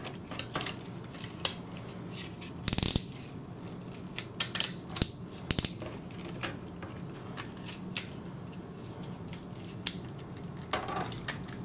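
Plastic parts of a Generation Toy GT-2 Tyrant transforming figure clicking and knocking as its legs are folded and turned, with scattered sharp clicks and the loudest short clatter about three seconds in.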